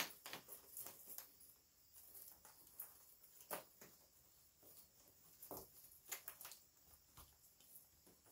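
Faint rustling and crinkling of artificial fall leaf stems being handled and pushed into a woven basket, a scatter of light irregular clicks.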